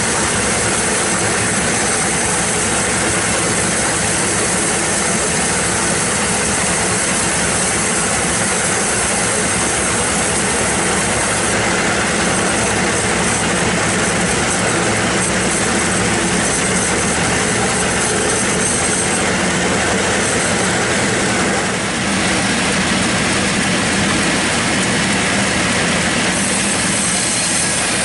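Log band sawmill running under load, its blade sawing lengthwise through a bayur (Pterospermum javanicum) log. A steady hiss of the cut sits over the continuous drone of the mill's drive.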